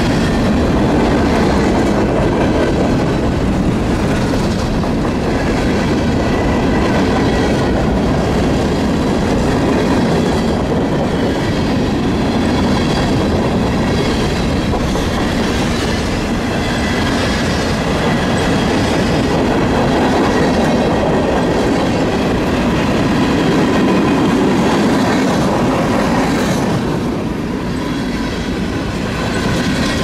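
Freight train of covered hoppers and tank cars rolling steadily past close by: a continuous rumble and clatter of steel wheels on the rails, with faint high-pitched wheel squeal coming and going.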